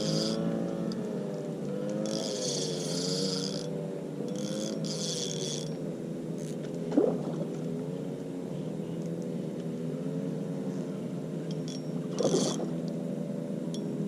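A motorboat engine runs steadily, its pitch wavering slightly up and down. Short high-pitched buzzing bursts come and go over it, and there are two sharp knocks, one around the middle and one near the end.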